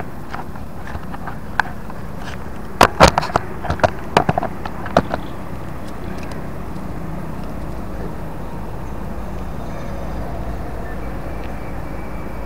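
A quick run of sharp knocks and taps from a freshly caught fish and the camera being handled on gravel, loudest about three seconds in and over within five seconds, then a steady low outdoor rumble.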